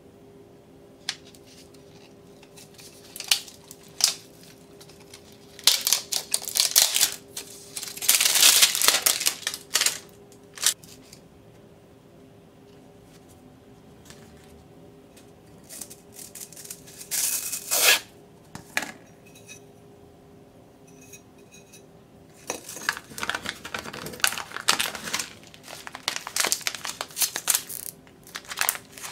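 Food packaging being unwrapped by hand: shrink-wrap and label tearing off a ceramic rice pot, with scattered light clicks and knocks of the pot and its wooden lid, then a plastic rice packet crinkling in the hands near the end.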